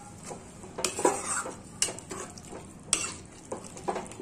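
Metal spatula stirring potato and jackfruit curry in a kadhai, mixing in freshly added water, knocking and scraping against the pan about once a second over a steady sizzle.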